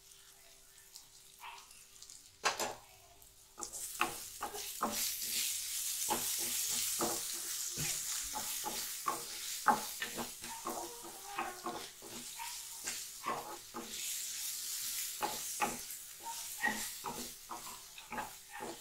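Grated raw mango, peanuts and lentils frying in hot oil in a black kadai, stirred with a wooden spatula: a steady sizzle with many quick knocks and scrapes of the spatula on the pan. The first few seconds are quiet; the sizzling and stirring start about four seconds in.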